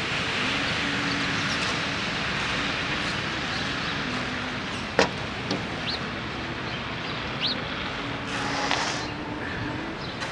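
Steady street ambience: an even hiss of traffic with a faint low engine hum, a single sharp click about five seconds in, and two short rising chirps from a small bird.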